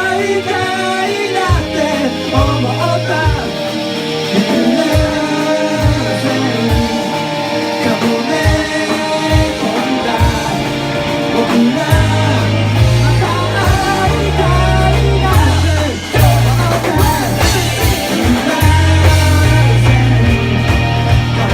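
A rock band playing a song live, with singing over guitar, bass and drums. About twelve seconds in, a heavy bass line comes in; after a brief dip near sixteen seconds the full band swells back with cymbals.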